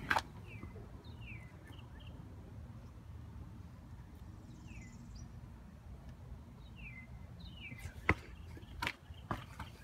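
Small birds chirping in short groups of quick, downward-sliding notes, over a steady low rumble. Sharp clicks or knocks come just at the start and again near the end, louder than the chirps.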